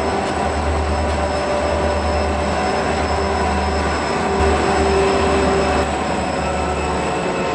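Several Southern Pacific diesel-electric locomotives running past at close range, a steady low engine drone with wheel squeal ringing over it. It gets louder for a moment about four to six seconds in.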